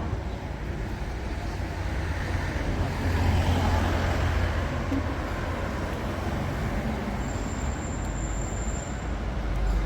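Road traffic going by, with a vehicle passing about three to four seconds in, over a steady low rumble. A faint thin high whine sounds for a couple of seconds near the end.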